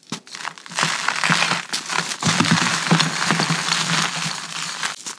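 Gritty reformed gym chalk, mixed with black sand, being crushed and crumbled: a dense, continuous gritty crunching full of small sharp cracks, easing briefly near the end.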